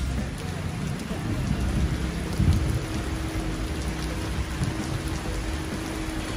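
Heavy rain pouring onto a wet street, a steady even hiss, with a faint steady hum underneath through most of it.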